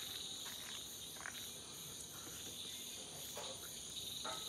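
Steady chorus of chirping insects, with a few faint short clicks.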